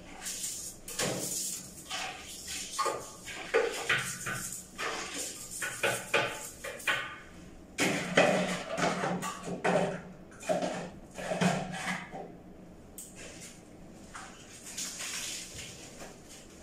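A toilet bowl being scrubbed by hand with a toilet brush: irregular brushing strokes and knocks against the ceramic, busiest and loudest in the middle.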